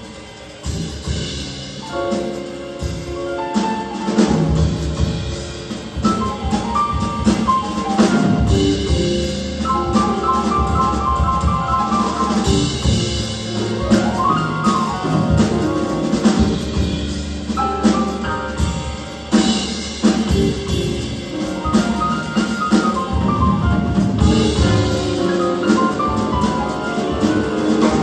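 Jazz big band of saxophones, trombones, trumpets and a rhythm section of piano, bass, guitar and drum kit playing live, with the drum kit busy under the horns. The band grows louder over the first few seconds and stays loud.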